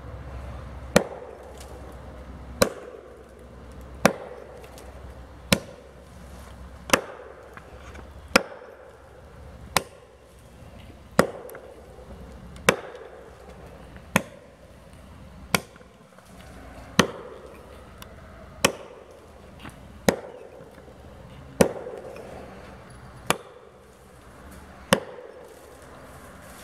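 Axe chopping into a standing tree trunk to fell it: a steady run of about seventeen sharp blows, one roughly every second and a half.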